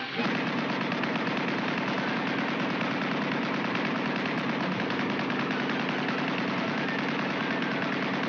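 Rapid, continuous crackling and sputtering, the cartoon sound effect of a lit fuse burning, starting abruptly.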